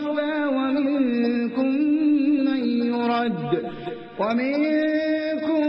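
A man's voice reciting the Quran in slow, melodic tajwid chant, holding long drawn-out notes. About three and a half seconds in, the voice slides down and fades, then comes back with a new held note.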